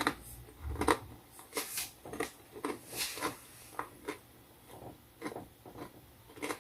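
A Popcorners popped-corn chip being crunched and chewed: short crisp crunches about two or three a second, coming more sparsely in the second half.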